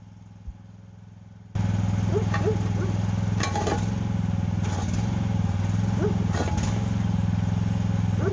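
Mini excavator's engine running steadily under load as it digs, cutting in suddenly about a second and a half in, with a few short knocks and squeaks from the bucket and arm.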